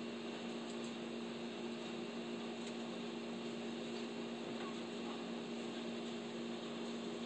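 Steady machine hum: a constant low drone over an even hiss, unchanging throughout. The squirrel's chewing does not stand out from it.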